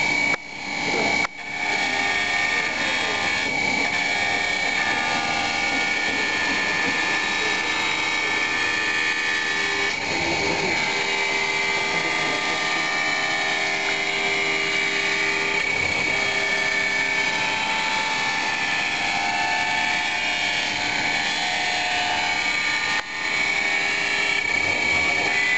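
Motor of a hand-guided glass edge-polishing machine running steadily with a high whine as its water-fed wheel works the edge of a glass panel. The sound dips briefly twice near the start and once about 23 seconds in.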